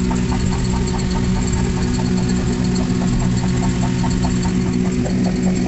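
A motor running steadily, heard from inside a small enclosed cabin: a low, even drone of a few steady tones.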